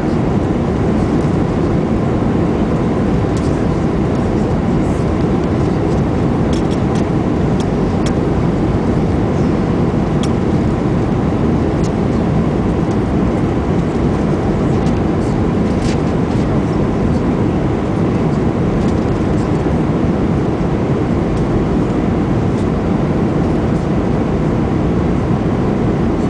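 Steady cabin noise of a jet airliner on final approach, heard from a window seat: engine and airflow noise with the flaps extended. A few faint ticks sound over it.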